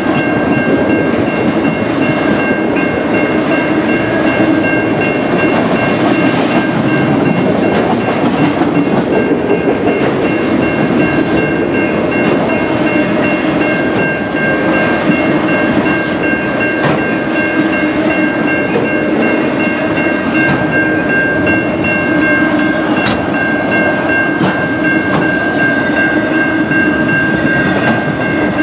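Multilevel autorack freight cars rolling steadily past at close range, with continuous wheel rumble, body rattle and rail clicks. Steady high-pitched ringing tones sit over the rumble.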